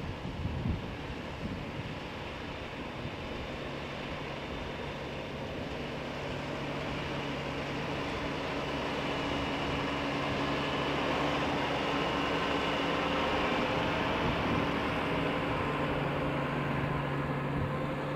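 Tractor carrying a front tank and rear-mounted boom sprayer, its engine running at a steady working speed, growing louder as it drives closer and easing off near the end. A few gusts of wind on the microphone in the first couple of seconds.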